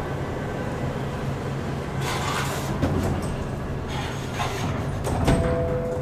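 Wooden landing door of a 1911 car elevator sliding down and shutting, a rushing scrape about two seconds in and a knock, then a heavier thud about five seconds in as it closes, over a steady low hum. A steady tone begins with the thud.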